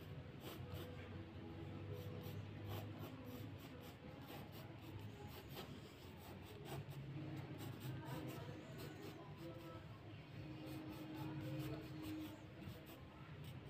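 Graphite pencil scratching on drawing paper in light, short sketching strokes, many in quick irregular succession. A faint low hum runs underneath.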